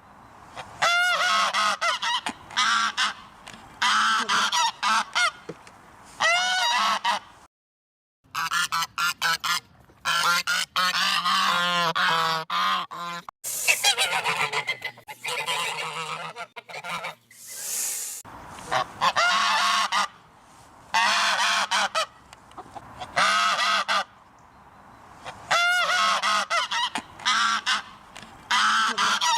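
Geese honking in repeated loud calls with short gaps between them. Partway through, several geese call over one another, and there is a brief hissing noise a little later.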